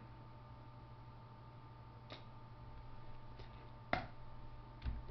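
A few computer mouse clicks, the loudest about four seconds in, and a dull thump near the end, over a faint steady hum.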